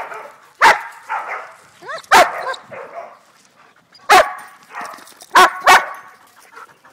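Dogs barking during tug-of-war play: about five loud, sharp barks, two of them close together near the end, with quieter whines and yips between.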